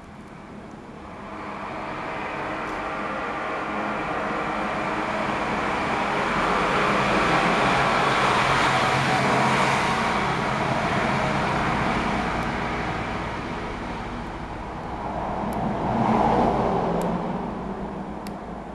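Passing road traffic: a vehicle's noise swells over several seconds and fades, followed by a second, shorter swell near the end.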